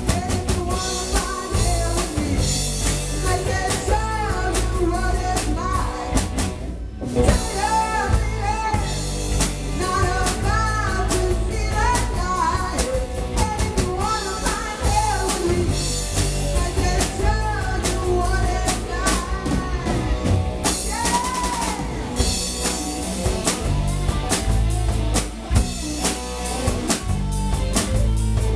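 Rock band playing live through amplifiers in a small rehearsal room: a drum kit, electric bass and electric guitar, with a singing voice over them. The band stops dead for a moment about seven seconds in, then comes straight back in.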